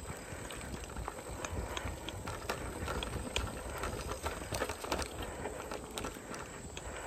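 A bicycle rolling down a bumpy dirt trail: a low rumble from the tyres on the ground, with irregular clicks and rattles from the bike as it jolts over the dirt.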